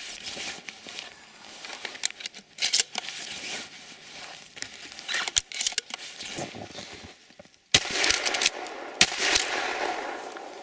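Shotgun fired several times, a few seconds apart, with the two loudest shots near the end followed by a noisy rush that fades out.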